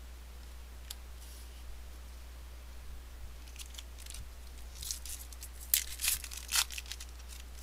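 A baseball card pack's wrapper being torn open and crinkled in the hands: a run of sharp crackling rips starting about halfway through, loudest near the end.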